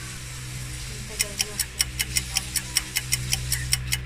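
A rapid, even ticking, about five sharp clicks a second, that starts about a second in and keeps going, over a steady low hum.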